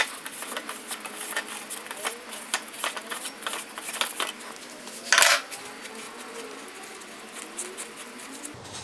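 Threaded bicycle headset cup being unscrewed with a 36 mm steel headset spanner and then by hand: a run of small metallic clicks and rubbing from the tool and threads, with one louder clack about five seconds in. It is coming off fairly easily.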